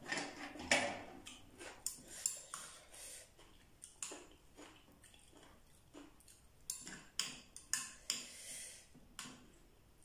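Eating sounds from a steamed scallop taken off its half shell. Then a metal spoon clicks and scrapes against scallop shells in a run of short, irregular taps.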